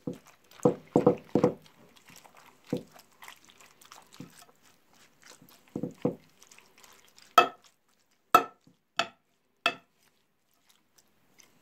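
Metal spoon stirring wet shredded cabbage and rice in tomato juice in a glass baking dish: irregular soft, wet scrapes, then four sharp knocks of the spoon against the glass in the second half.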